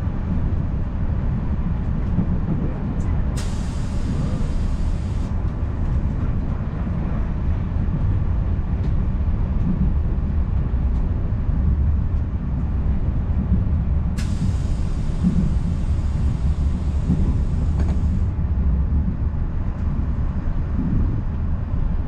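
Passenger train running, heard from inside a carriage: a steady low rumble. Two spells of high hiss start and stop abruptly over it, a short one a few seconds in and a longer one of about four seconds past the middle.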